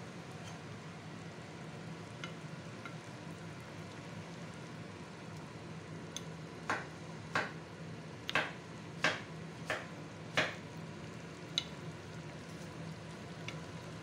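Chicken and vegetable tajine simmering in an earthenware tagine with a steady sizzle. Partway through, a metal spoon clinks sharply against the clay dish about six times over some four seconds, with a couple of lighter clinks after.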